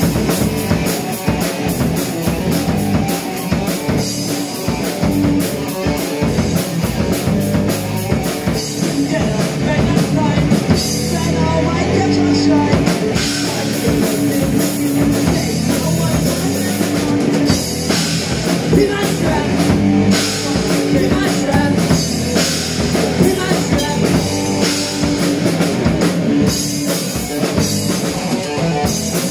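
Live rock band playing loud and without a break: electric guitars over a drum kit keeping a steady beat.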